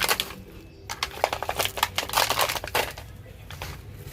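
Toy packaging being handled and opened: rapid crinkling and crackling, a dense run of small clicks, busiest from about one to three seconds in.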